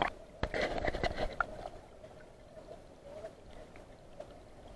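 A stream's rushing and gurgling, muffled as heard by a waterproof camera dipped under the water. A cluster of splashes and knocks comes in the first second and a half, then a quieter, steady gurgle.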